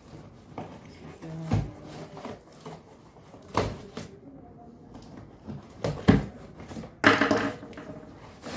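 Cardboard box being handled and opened on a table: a few separate knocks and bumps, then a longer rustling noise about seven seconds in.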